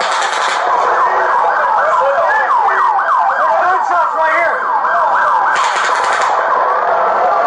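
Several emergency-vehicle sirens wailing and yelping over one another, their rising and falling tones overlapping and quickest in the middle.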